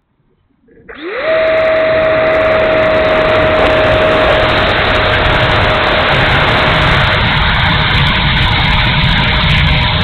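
E-flite F-16 70 mm electric ducted fan spooling up to full throttle about a second in: a quick rising whine that settles into one steady high tone over a loud rush of air, through the takeoff run and climb-out. Heavy wind rumble on the onboard microphone underneath.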